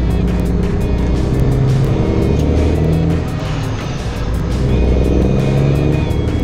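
Background music over the running engine of a semi truck, with a brief dip in loudness about three seconds in.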